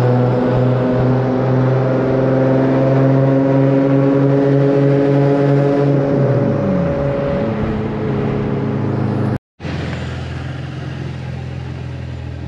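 Nissan 350Z's 3.5-litre V6 engine and exhaust running under way, the revs climbing slowly for about six seconds, then falling away. After a brief break in the sound, a steady lower engine drone follows.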